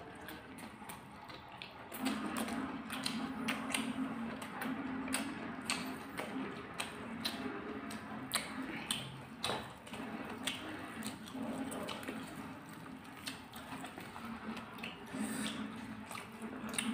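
Close-miked eating: wet chewing, lip smacks and slurps of instant noodles and omelette, with many short sharp wet clicks. A low steady hum lies underneath from about two seconds in.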